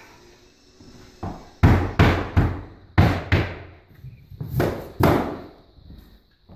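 Flooring mallet blows during hardwood floor installation, about eight hard knocks in quick succession, each with a short ringing tail.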